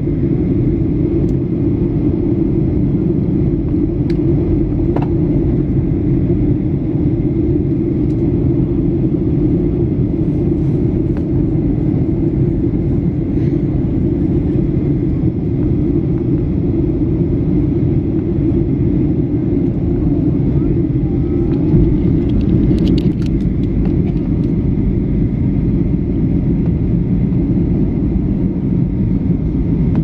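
Steady cabin noise of a Boeing 737-800 airliner in descent: the CFM56 engines and the rush of air over the fuselage make a constant low rumble. There is a brief rattle a little past two-thirds of the way in.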